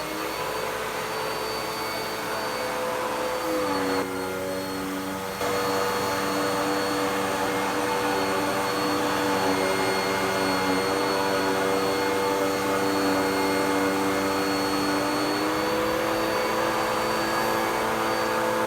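Dirt Devil PowerMax Pet upright vacuum cleaner running steadily. Its motor note drops in pitch about three and a half seconds in, gets louder a couple of seconds later, and rises again near the end, as the load on the motor changes.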